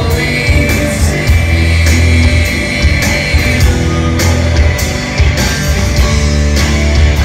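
Live rock band playing, led by electric guitar, with heavy bass and a steady beat, picked up from the audience.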